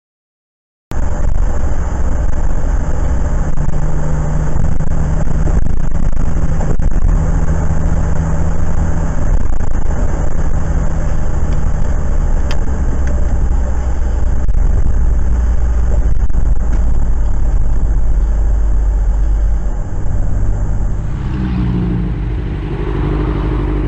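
Steady road and engine rumble of a car on a wet highway, heard from inside the cabin, with a few short clicks. About 21 seconds in it gives way to a motorcycle engine running, its pitch rising near the end.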